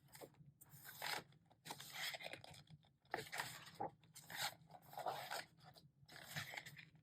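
Pages of a K-pop album photo book being turned one after another, each turn a short rustle of paper, about one a second.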